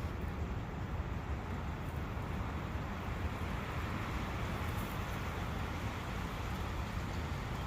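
Forest ambience near a brook: steady wind noise with a low rumble, over the brook's even rush of running water.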